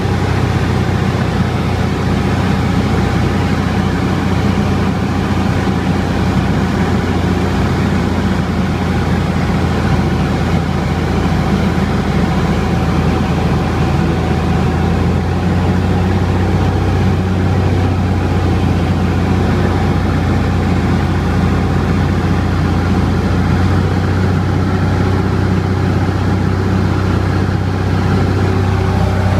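Cessna 172's piston engine and propeller running at a steady low hum, heard from inside the cabin in flight, with a rush of airflow noise over it.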